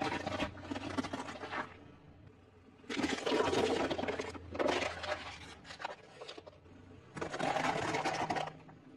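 Car tyre slowly rolling over and crushing objects on concrete, crunching and crackling in four bursts: a white radish near the start and ice cubes near the end.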